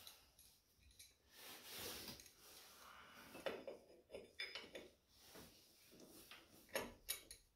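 Faint metal clinks and scrapes of an adjustable spanner being fitted against the cooling fins of a scooter's front drive pulley, to hold it still. There is a short cluster of sharp ticks about three and a half to four and a half seconds in, and a couple more near the end.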